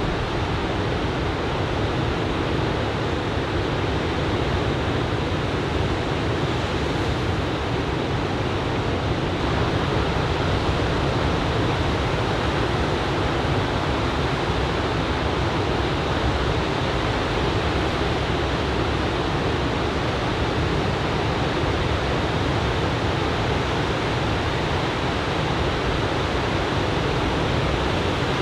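Steady, unbroken rush of ocean surf breaking on a sand beach under a typhoon swell.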